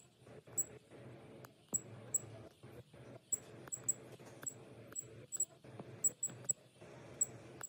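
Irregular short, high ticks, about two a second, as a fingertip taps the touchscreen menus and number keys of a handheld inkjet coding printer, over a low steady background hum.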